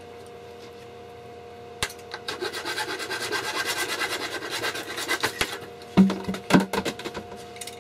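Hand saw cutting through a clear polycarbonate tube in quick rasping strokes, starting about two seconds in. Near the end the cut goes through and the freed piece of tube gives a few loud hollow plastic knocks.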